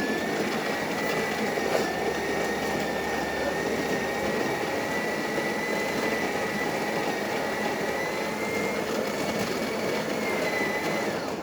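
Built-in coffee grinder of a Krups EA9000 bean-to-cup espresso machine grinding beans for a shot, a steady whirring noise with a thin high whine that cuts off abruptly near the end.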